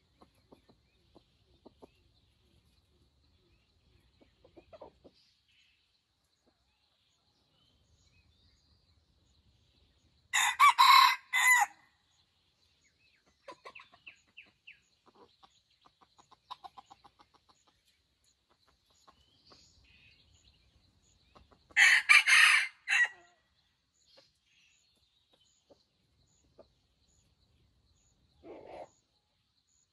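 Red junglefowl rooster crowing twice, short clipped crows about ten seconds apart, with softer quick clucking in between and one short call near the end.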